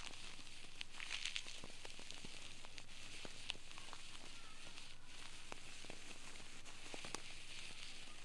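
An ear-cleaning tool working in an ear canal, picked up close: scattered small clicks and crackles over a steady hiss.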